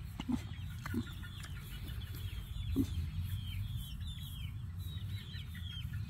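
A pig grunting softly a few times while being scratched, over a steady chorus of many high, quick chirps from birds, each falling in pitch.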